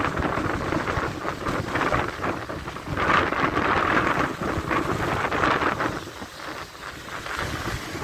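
Choppy surf of the Sea of Azov breaking and washing up a sandy beach, with foam hissing on the sand. A bigger wave surges in about three seconds in, splashing over driftwood at the water's edge, and draws back after about six seconds.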